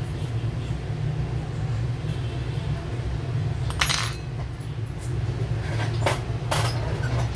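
A few short metallic clicks and taps from a steel pry tool and the phone's metal frame being handled, one about four seconds in and several more between six and seven seconds, over a steady low hum.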